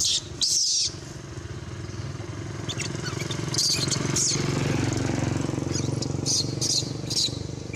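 An engine idling steadily as a low hum, with several short, shrill squeaks over it: one just after the start, and a cluster from about the middle onward.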